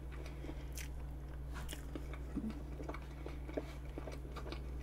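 A person chewing a bite of vanilla pound cake with whipped cream close to the microphone: small, irregular mouth clicks, over a steady low electrical hum.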